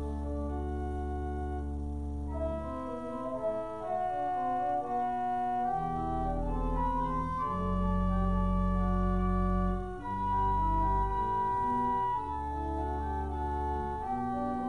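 Pipe organ playing sustained chords and a melody over held pedal bass notes, which change every couple of seconds.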